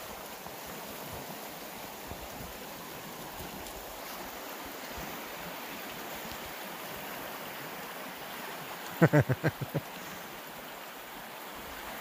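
Steady rushing of a river's flowing water. About nine seconds in comes a quick run of about six short, loud pulses of a person's voice.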